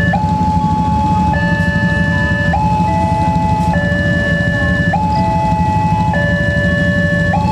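Railway level-crossing warning alarm sounding: two electronic tones alternating high and low, each held about a second, signalling that a train is approaching and the barrier is closed. A steady low rumble runs underneath.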